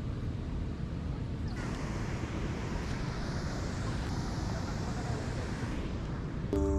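Wind rumbling on the microphone at the water's edge, with a rushing hiss of river water lapping against rock from about a second and a half in until near the end.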